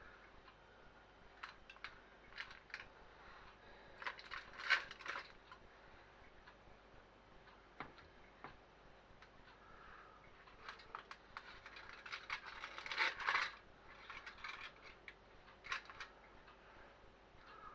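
Aluminium foil lining an air fryer basket crinkling, with scattered light clicks and taps as cooked potato stacks are lifted out by hand and set on a plate. The crinkling grows louder twice, about four seconds in and again about twelve seconds in.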